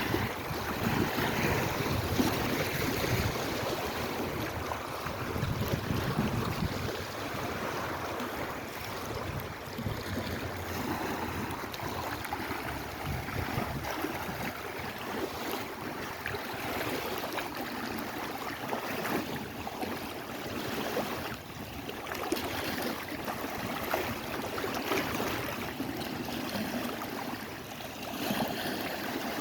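Lake Erie waves: a continuous wash of water that swells and eases irregularly.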